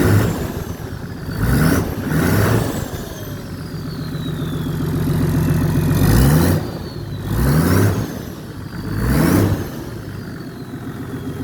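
Toyota Land Cruiser HDJ80's turbodiesel straight-six, with the muffler deleted, blipped about six times over a steady idle. The turbo whistles as it spools up on each blip and winds down in long falling whistles between them.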